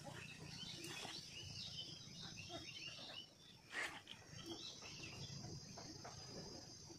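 Faint chirping of insects and birds in the background, with a high steady trill, scattered short chirps and one sharp tick about four seconds in.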